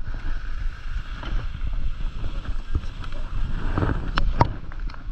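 Atomic skis sliding slowly over packed snow, a steady scraping rumble with wind on the helmet-camera microphone. A few sharp clicks near the end as the skier comes to a stop.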